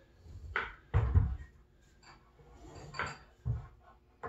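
Heavy timber stretcher knocking and thumping against the posts as its tenons are worked down into their mortises, a handful of wooden knocks with the loudest low thump about a second in.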